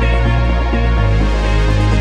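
Progressive house music at 126 bpm: a dense electronic mix over a steady, deep bassline whose note changes about a second in.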